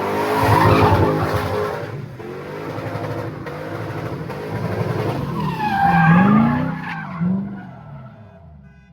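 1997 Lexus LS400's 4.0-litre V8 revving hard while the car slides, with tires squealing about two-thirds of the way in, then fading. The automatic holds first gear without upshifting, showing the adjusted shift linkage has cured the unwanted upshift.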